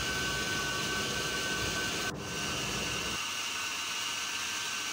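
Electric food processor running steadily with a motor whine, its blade grinding a chicken, cream and herb mixture into a fine paste. The sound breaks off abruptly about two seconds in and resumes with less low rumble.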